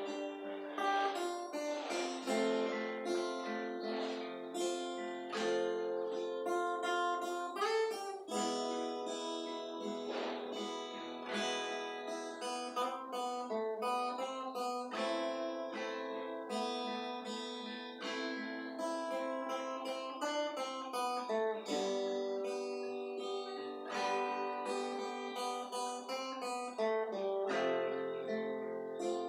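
Acoustic guitar being played, chords strummed and picked in a steady rhythm.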